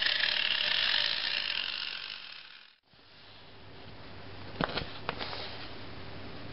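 Homemade 12-volt DC motor router with a Dremel tool adapter whirring, then winding down and stopping nearly three seconds in. A few light plastic clicks follow about five seconds in, as a micro servo is handled.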